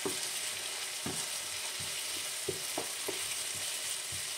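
Sliced red onions and chopped tomatoes sizzling in a frying pan with a steady hiss, while a wooden spoon stirs them, knocking and scraping against the pan several times at irregular intervals.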